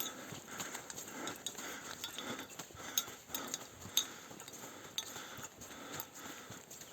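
Footsteps of someone hiking a trail, an even walking rhythm of about two steps a second, with scattered sharp ticks.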